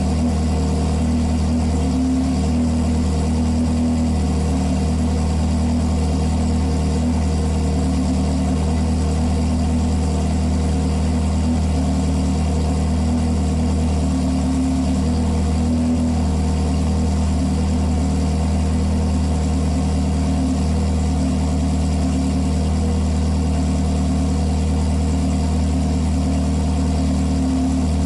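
Ferrari 360's 3.6-litre V8 idling steadily through an MS-Racing Ver.4 aftermarket exhaust, a deep, even note with no revving.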